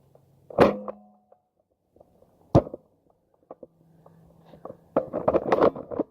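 Two sharp knocks about two seconds apart, then a quick run of rattling clicks and knocks near the end.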